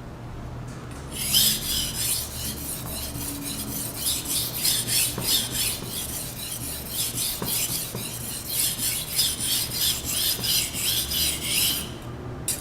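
Steel knife blade scraping back and forth on a 1000-grit whetstone in quick, even strokes, held at a steep angle to grind the chipped edge back. The strokes start about a second in and stop shortly before the end.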